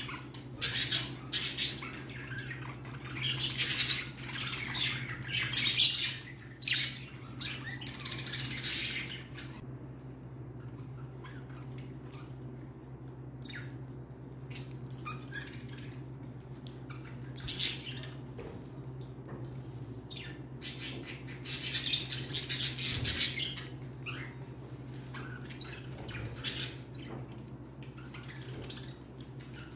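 Small pet parrot chewing and tearing at a toy cart made of painted wooden craft sticks: bursts of crackly crunching mixed with short chirps, busy through the first third and again about two-thirds of the way through, with scattered nibbling clicks between.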